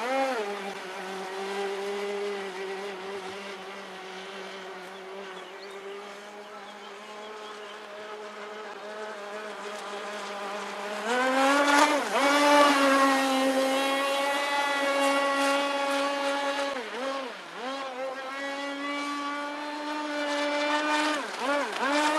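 Radio-controlled model boat's motor running at a steady pitch, then opened up about halfway through to a higher, louder note that dips and rises several times as the throttle is worked.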